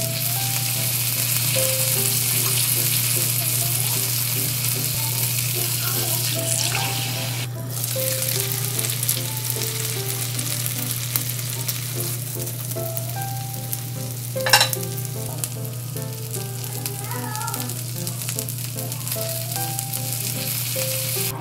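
Hamburger steak patties frying in oil in a nonstick frying pan, with a steady sizzling hiss that breaks off briefly about seven seconds in and is softer in the second half. A single sharp click about two-thirds of the way through.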